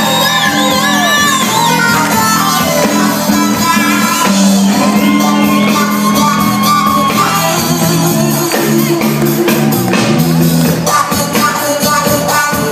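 Rock band playing live on electric guitars, bass and drums, with held chords under steady drum and cymbal hits. Shouting rides over the music.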